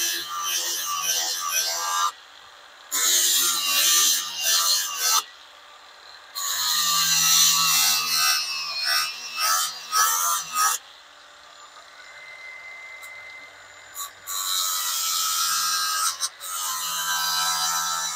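Power tool fitted with a 180-grit flap disc, sanding and smoothing, run in bursts of a few seconds with brief stops and one longer pause in the middle.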